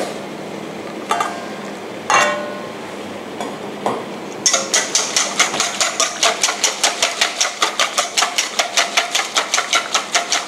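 Wire balloon whisk beating egg mixture in a stainless steel bowl: from about halfway in, the wires strike the bowl's side in a fast, even clatter, about five times a second. Before that, a couple of ringing metallic clinks of the steel bowls.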